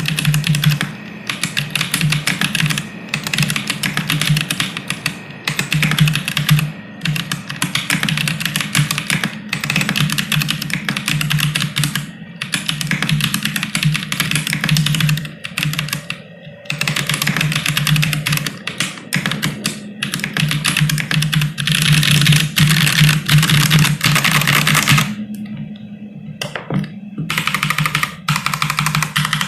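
Continuous fast typing on a Synthesis60 mechanical keyboard with stock Holy Panda tactile switches, an FR4 plate and ABS Cherry-profile keycaps: a dense stream of keystroke clacks with short gaps, easing into a lull of about two seconds near the end.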